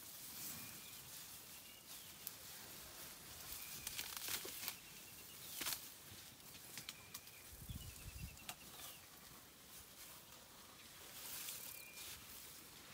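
Young African elephant foraging: grass rustling and stems snapping and tearing as its trunk pulls them up, in a scatter of short sharp snaps. Faint short high chirps sound in the background, and a dull low thud comes about eight seconds in.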